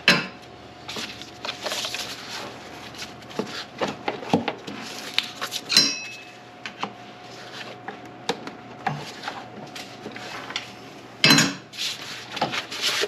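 Metal hand tools and engine-bay parts clinking and knocking: scattered light clicks, one ringing metallic clink about six seconds in, and a louder clatter about eleven seconds in.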